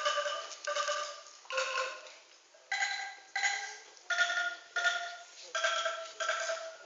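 Solo angklung melody: tuned bamboo tubes shaken one after another, about ten notes in a steady rhythm, roughly one every two-thirds of a second. Each note starts sharply as a rattling tone and fades, and the pitch changes from note to note.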